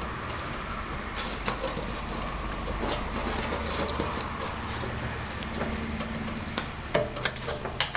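A cricket chirping steadily, about two high chirps a second, with scattered light clicks and knocks from a plastic fuel-tank rollover valve being worked into its rubber grommet.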